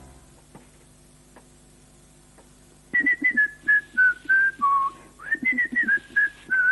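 A person whistling a short tune that starts about three seconds in: two phrases of quick single notes, each phrase stepping down in pitch, the second leaping back up to begin.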